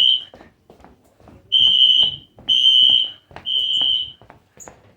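Wheelock NS fire alarm horn sounding a high steady tone in the three-pulse temporal-3 evacuation pattern: one blast ends just after the start, then after a pause come three short blasts about a second apart.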